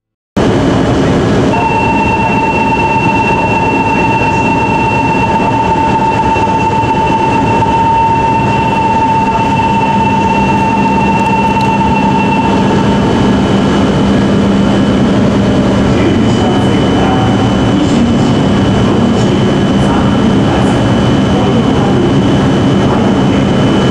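Station platform departure bell: a steady electronic ringing tone that starts about a second and a half in and stops after about eleven seconds. Heard from inside a stationary E5-series Shinkansen car, over the train's steady low hum.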